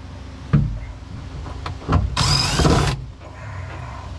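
Cordless drill-driver running in a short burst of just under a second with a wavering whine, backing a screw out of a fridge panel. A knock comes about half a second in.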